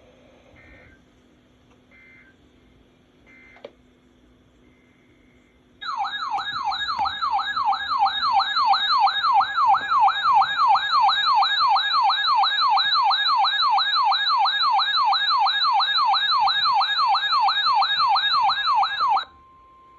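Electronic emergency alert attention signal: a loud warbling tone sweeping rapidly up and down, about three times a second. It starts about six seconds in, runs for about thirteen seconds and ends in a short steady tone. Before it come a few faint short beeps.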